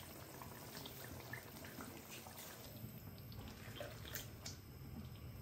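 Faint wet, liquid sounds of a chicken and potato curry gravy being stirred with a spoon in a karahi, with a few light ticks.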